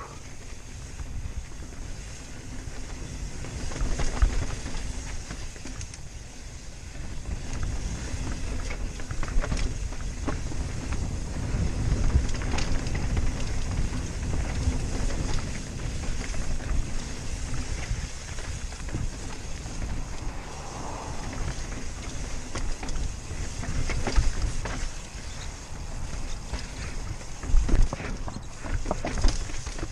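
Wind rushing over a helmet-mounted camera microphone as a Rocky Mountain Slayer full-suspension mountain bike rolls downhill over rock, with a steady rumble from the tyres and sharp knocks and rattles over the bigger rocks, the hardest hits near the end.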